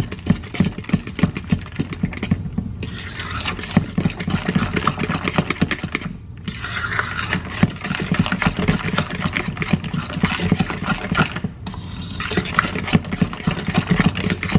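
A utensil stirring thick banana bread batter with chocolate chips in a mixing bowl, quick repeated strokes scraping and knocking against the bowl, in four spells with short pauses between.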